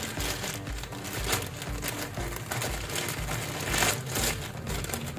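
Plastic courier mailer bag being handled and opened by hand, crinkling and rustling in irregular crackles.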